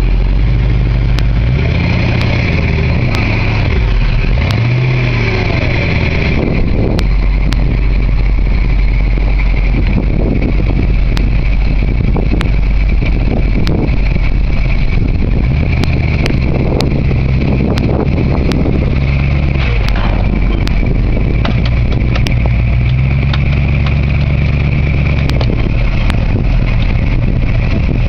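The homemade forklift's 318 Chrysler V-8 running under load, its revs rising and falling several times as the lift moves. Short metallic clicks and knocks come through it.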